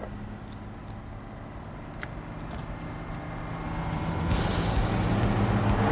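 Heavy truck engine running steadily under load, growing louder, with a broader rush of road and engine noise joining about four seconds in.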